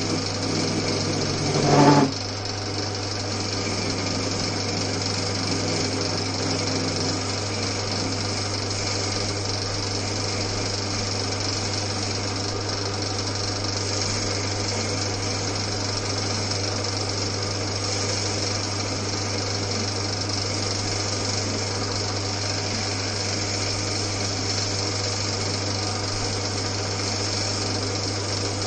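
Old Winfield metal lathe running steadily, its motor and drive giving a constant whirring hum. A brief louder noise comes about two seconds in.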